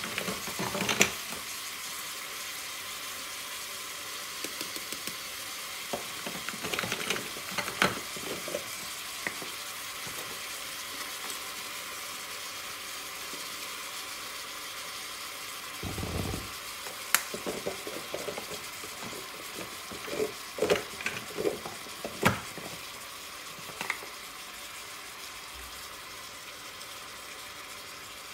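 Chicken pieces sizzling steadily as they fry in a pan, with scattered clicks and knocks from seasoning jars being handled and shaken over it.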